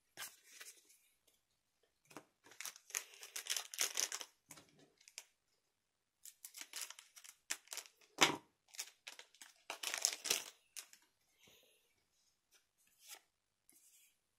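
Foil trading-card booster pack wrapper crinkling and tearing as it is opened, in several bursts of rustling, with a sharp snap about eight seconds in.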